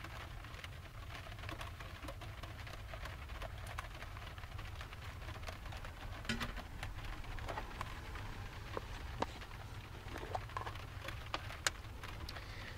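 Rain tapping on a camper van's metal roof, over a steady low hum. From about six seconds in come a few light clicks and knocks as a metal kettle is set down on the stove and a jar is handled.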